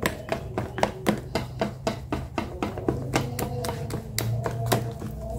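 Wire whisk beating runny mochi batter in a thin plastic tub, clicking against the sides in a quick, even rhythm of about four strokes a second.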